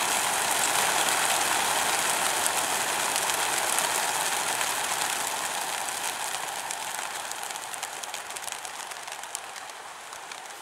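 A large flock of pigeons taking off together from transport crates, a dense whirring and clatter of wingbeats that fades steadily as the flock flies away.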